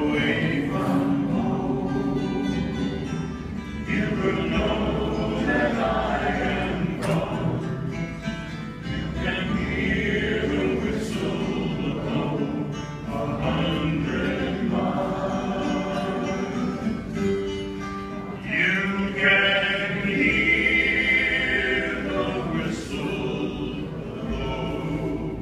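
Live folk music: male voices singing in close harmony, accompanied by strummed acoustic guitars and a bass guitar.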